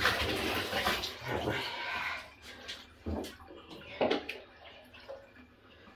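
Water splashing in a bathtub as a wet dog is rinsed by hand: a couple of seconds of steady splashing, then a few quieter single splashes.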